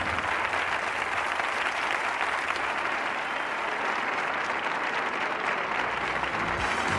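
Studio audience applauding steadily at the end of a song. The band's music starts up just before the end.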